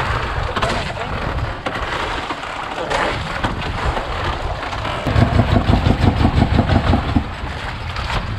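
Wind buffeting the microphone over open sea, with water moving against the outrigger boat. A little past the middle comes a stretch of rapid low pulsing rumble lasting about two seconds.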